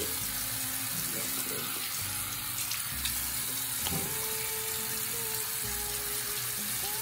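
Water running steadily from a bathroom sink tap while hands splash it onto a face.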